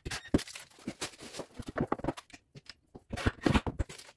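Irregular clicks and knocks of hands working a cabinet door's concealed metal hinges and screws, with a cordless drill being handled, densest about three seconds in. No steady drill motor is heard.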